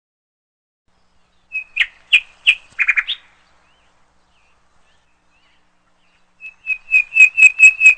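Bird chirping: a short run of quick high chirps about two seconds in, then a longer run of rapid repeated chirps near the end.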